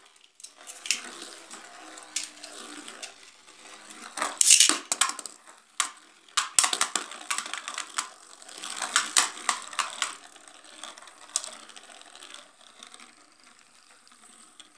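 Two Beyblade spinning tops, Victory Valtraek and Xeno Xcalibur, whirring and scraping around a plastic basin, clattering against each other and the basin wall in sharp hits. The loudest hit comes about four and a half seconds in, and the clashing thins out near the end.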